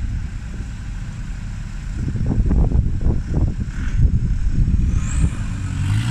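Engines of an off-road buggy and a VW Beetle running under load as the buggy tows the Beetle through sand and mud on a strap, growing louder about two seconds in.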